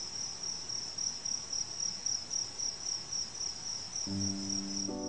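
A cricket chirping in a continuous high, rapidly pulsing trill. Soft piano music comes in about four seconds in.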